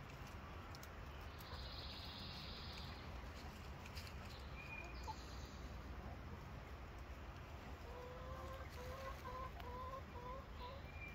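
Hens clucking softly, with a run of about eight short, evenly spaced clucks near the end.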